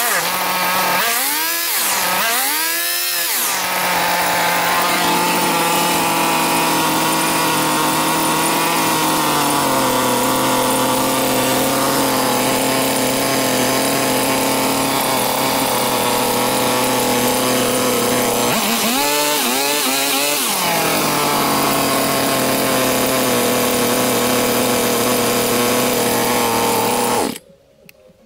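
Small two-stroke engine of a Chinese 1E44F-5 brush cutter, freshly fitted with a new cylinder and piston, idling; it is revved up and down twice near the start and twice again about two-thirds through, the idle settling lower in between. It cuts off suddenly near the end.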